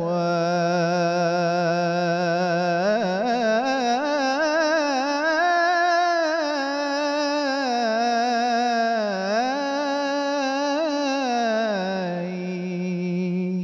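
A man singing one long unbroken Arabic vocal run with wide vibrato and ornamented turns. The pitch climbs through the middle, dips briefly about two-thirds of the way in, and settles back to the opening note at the end.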